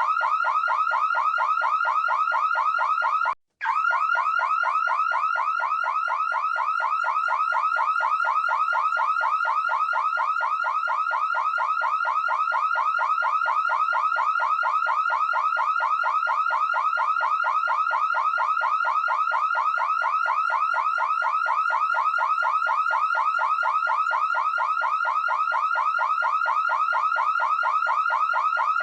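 Electronic alarm sounding continuously: a rapid, evenly repeating series of short rising electronic chirps, several a second. It cuts out for an instant about three and a half seconds in, then carries on unchanged.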